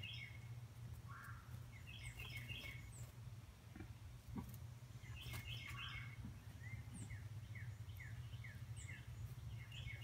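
Small songbirds chirping and calling in short clusters, then a run of about six quick down-slurred notes in the second half, over a steady low hum.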